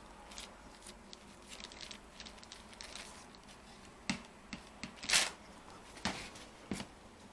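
Small clicks and taps of hands working on the plastic parts of a laptop being disassembled, with a few sharper clicks between about four and seven seconds in.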